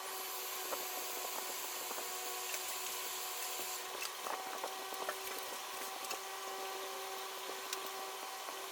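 A steady whir of a small motor, carrying a couple of steady tones, with a thin high whine over the first few seconds and scattered light clicks and taps.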